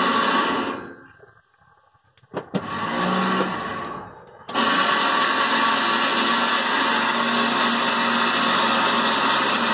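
Electric motor of a homemade remote-controlled solar tracker running as it turns the panel array. It winds down and stops about a second in. A few clicks and a short, weaker run follow, then it starts again abruptly at about four and a half seconds and runs steadily.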